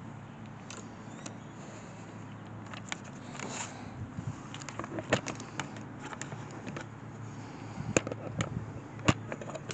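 Scattered clicks, knocks and light clatter of tools and parts being handled over a steady low hum, with two sharp, louder clicks near the end.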